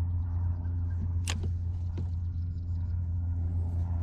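Steady low hum of a boat motor running, with a brief sharp swish about a second in.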